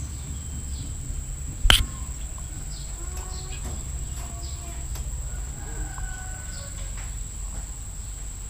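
Outdoor background of a steady high-pitched insect drone with scattered faint bird chirps and a low rumble, broken by one sharp knock close to the microphone about two seconds in.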